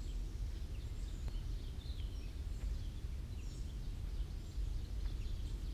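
Small birds chirping and calling in short scattered notes over a steady low outdoor rumble.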